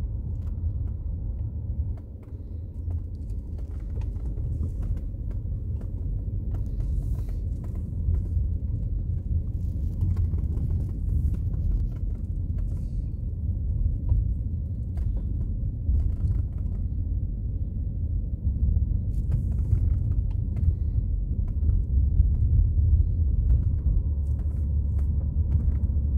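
Car road and engine noise heard from inside the cabin while driving: a steady low rumble, dipping briefly about two seconds in, with a few faint ticks and rattles.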